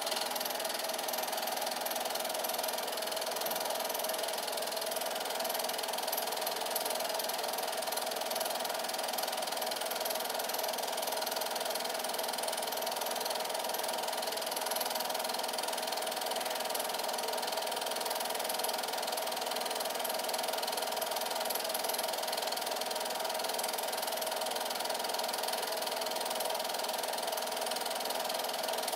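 8mm film projector running: a steady mechanical whir with a constant hum.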